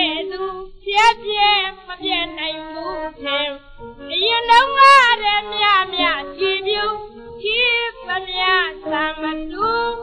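Burmese song from a 1940 His Master's Voice record: a woman singing a gliding, ornamented melody, with the dull, narrow sound of an old record transfer.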